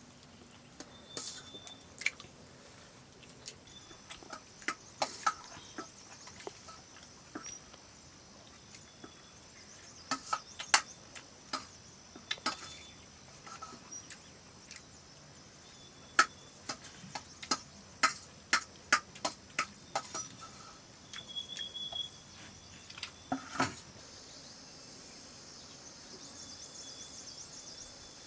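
Irregular clinks of dishes and utensils during a meal, a few to several a second, stopping about three quarters of the way through. Insects buzz steadily in the background, growing a little louder near the end.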